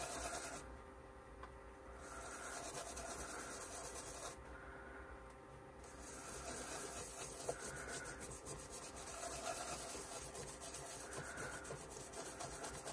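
Small brush rubbing ethereal powder onto the surface of a cured epoxy resin piece in quick repeated strokes.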